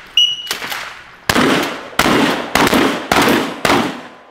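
Rapid 12-gauge pump-action shotgun fire, about six shots in under four seconds, from two shooters firing on steel targets at once. A short high metallic ring comes near the start.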